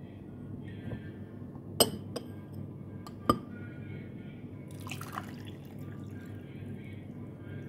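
Sharp clinks against a glass of water, the loudest about two seconds in and another a little after three seconds, then a brief swish of water about five seconds in.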